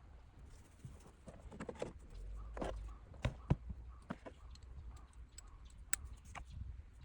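Irregular clicks, taps and knocks of hand tools and car interior parts being handled during disassembly, with two sharp knocks a little after three seconds in.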